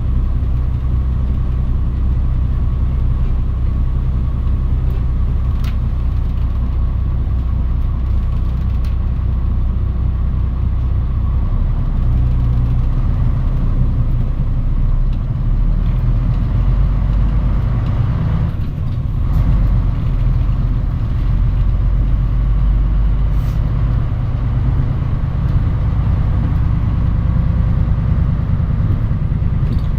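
Mitsubishi Fuso Aerostar city bus heard from inside the cabin, its diesel engine running with a steady low drone. The engine note shifts several times as the bus changes speed or gear.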